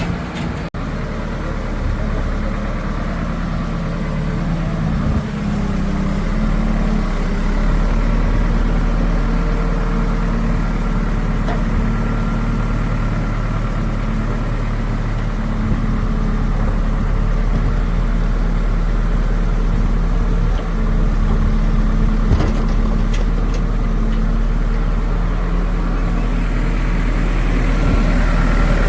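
Diesel engine of heavy machinery running steadily at a low, even speed, with a few faint clicks late on.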